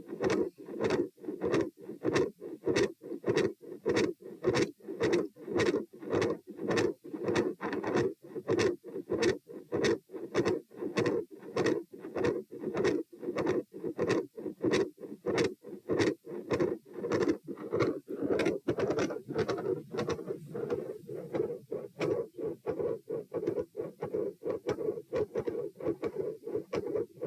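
Heart sounds through a stethoscope at the pulmonic area: a steady rhythm of paired lub-dub beats with a continuous rushing noise between them. The heart is one the uploader describes as having an intermittent machinery-like murmur and a loud second heart sound (S2).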